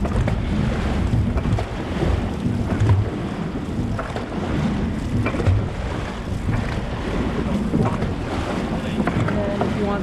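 Wind buffeting the microphone over a steady rush of water around a boat, with a few faint scattered knocks.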